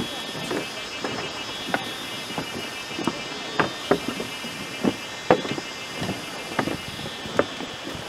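Footsteps on the wooden plank deck of a suspension footbridge, at walking pace, about a step and a half a second. Underneath runs a steady high-pitched drone of several tones.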